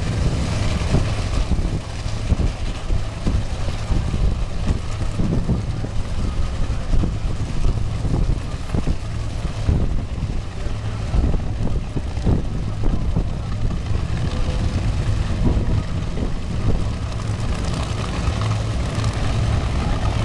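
Two supercharged nitromethane Funny Car V8 engines idling loudly and unevenly at the drag strip starting line.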